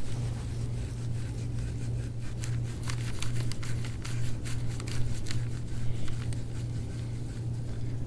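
Handheld gua sha scraping tool stroking over oiled skin on a back: a run of short, quick, irregular scrapes, over a steady low hum.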